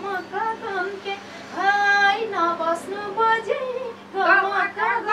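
A woman singing unaccompanied, in short sung phrases with a long held note near the middle.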